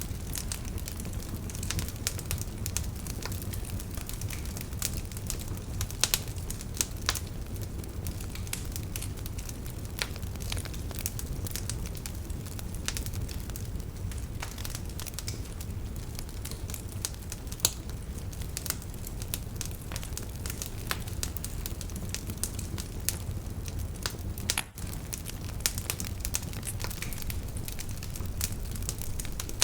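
Wood fire crackling in a fireplace: a steady low rumble of flame under irregular sharp pops and snaps, a few of them louder.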